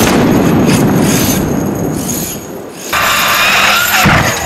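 A 30 Degree North RC short course truck running. For about the first three seconds there is a fast, low rattling. Then the motor revs up with a rising whine, and a sharp knock comes about four seconds in.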